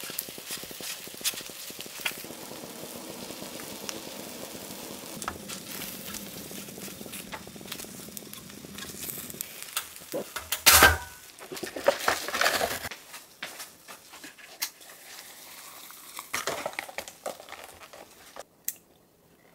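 Takoyaki sizzling in a cast-iron takoyaki pan while wooden skewers tick and scrape against it as the balls are turned. About eleven seconds in there is a loud knock and clatter of the pan being handled, the sizzle then dies down, and a short crinkle near the end comes from the foil lid of a cup noodle being peeled back.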